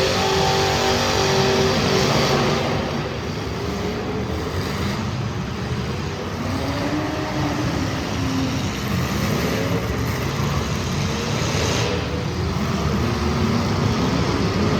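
Several street stock race car engines running and revving together on track, their pitch rising and falling and overlapping.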